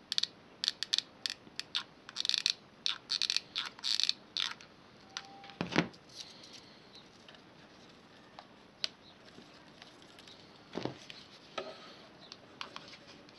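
Handling noise from a plastic-bottle-and-cardboard model plane and a hot glue gun: a quick run of small crinkles and clicks for the first four seconds or so, a single thump about six seconds in, then a few faint clicks.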